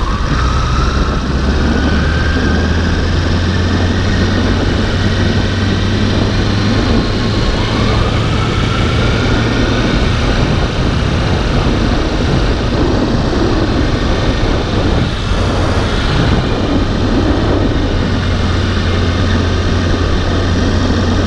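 Motorcycle engine running steadily while riding at low speed, with a faint rising whine near the start and again about eight seconds in.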